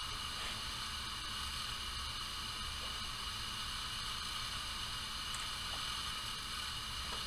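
Steady background hiss with a low hum underneath and no distinct event.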